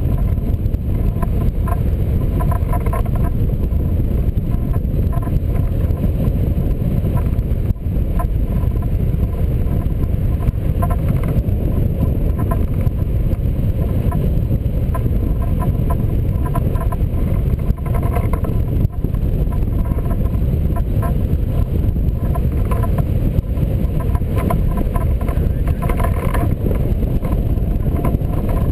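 Steady loud rush of airflow over a camera microphone mounted on a hang glider in flight, deep and continuous with a faint fluttering above it.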